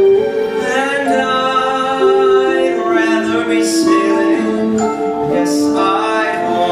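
A male singer singing a slow musical-theatre song into a handheld microphone, with long held notes.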